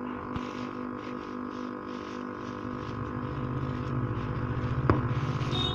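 A steady droning hum made of several held tones, with a hiss pulsing two or three times a second and a low rumble that grows louder after about three seconds.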